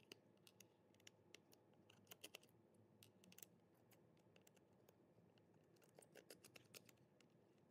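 Faint, irregular small clicks and scrapes of a precision screwdriver turning the tiny screws out of a plastic TDK D-C120 cassette shell, near silence between them.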